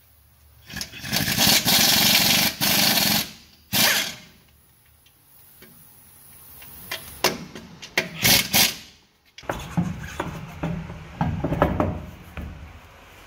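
A power tool run in several bursts, tightening the nuts and bolts of a truck's front shock and suspension: one long run early on, a short one, then a few shorter bursts later.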